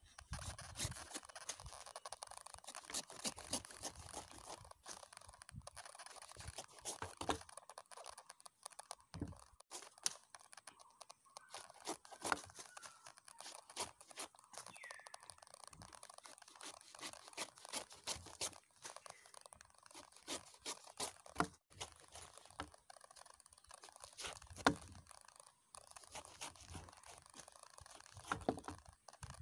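A large knife cutting and shaving the thick, spiky rind off a whole jackfruit: repeated crunching cuts and scrapes with many sharp clicks.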